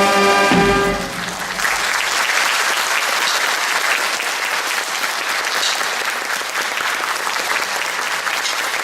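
A wind band's brass section ends on a held chord, cut off with a low hit about a second in, then an audience applauds steadily.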